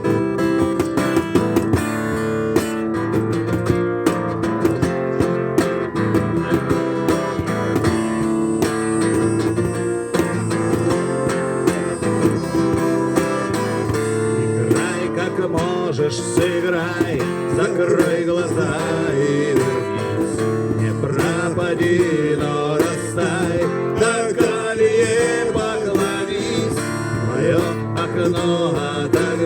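Acoustic guitar strummed and played steadily through an instrumental break in a rock song, with wavering melodic lines joining about halfway through.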